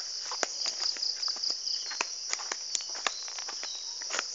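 Steady high-pitched insect chorus, with irregular crunching footsteps and clicks from walking through grass and dry leaves.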